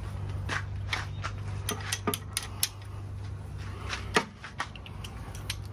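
Socket wrench turning the nuts that draw down the cylinder liner bank of a John Deere 2010 diesel: irregular sharp metallic clicks, a few a second, with the nuts under so little tension that they barely need a wrench. A steady low hum runs underneath.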